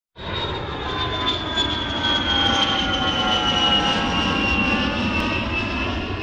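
Airplane engine sound effect cutting in suddenly: a steady drone with a whine that slowly falls in pitch, like a plane flying past.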